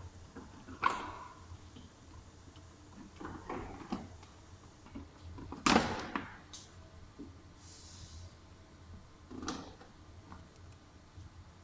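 Scattered knocks and clicks of plastic car body parts and tools being handled, with three louder knocks about a second in, just before six seconds and around nine and a half seconds.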